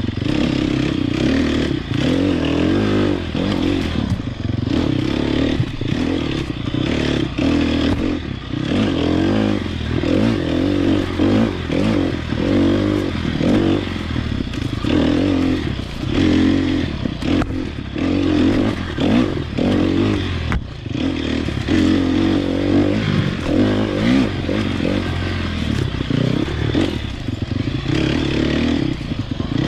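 Sherco SEF 300 Factory's single-cylinder four-stroke engine running as the enduro bike is ridden off-road, revving up and down as the throttle is worked. Scattered knocks and clatter come from the bike bouncing over rough ground.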